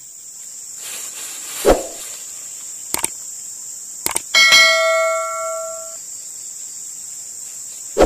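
Subscribe-button animation sound effect: a whoosh, two mouse clicks, then a bell chime ringing for about a second and a half, with another whoosh at the end. Insects drone steadily underneath.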